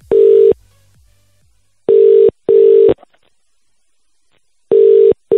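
Ringback tone of an outgoing phone call heard over the telephone line: a steady low tone in the double-ring pattern, two short rings close together, repeating with a pair about two seconds in and another near the end.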